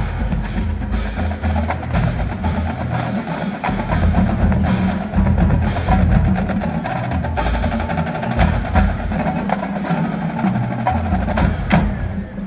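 Marching band percussion playing, with many sharp clicks and drum hits over low drumming.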